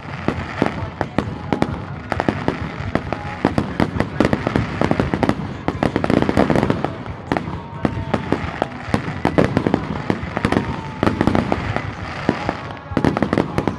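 Fireworks display: aerial shells bursting in quick succession, a dense run of bangs and crackles many times a second, with no pause.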